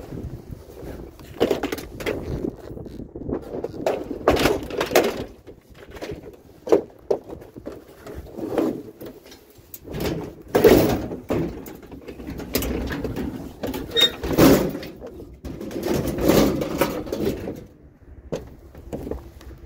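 Curbside scrap being handled and picked through: an irregular series of clanks, knocks and clatters, the loudest about halfway through and again around three-quarters in.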